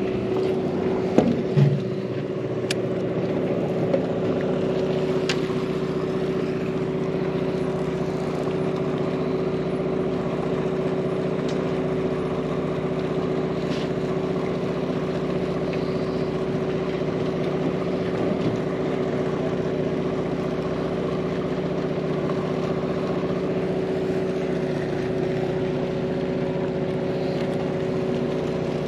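Sportfishing boat's engine running with a steady, unchanging drone, with a few short knocks on board about a second or two in.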